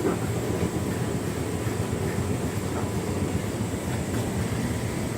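Hotpoint Ultima S-line tumble dryer running a heating cycle: the drum turning and the fan blowing warm air make a steady, even machine noise with a faint high whine.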